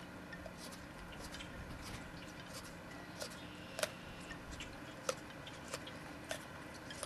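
German Shepherd gnawing and biting apart a Chewber chew toy: a run of irregular sharp crunching clicks, loudest about four and five seconds in.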